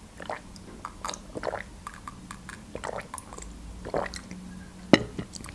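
Close-up mouth sounds of eating and drinking: soft wet chewing, smacks and swallowing clicks, with one sharper click a little before the end.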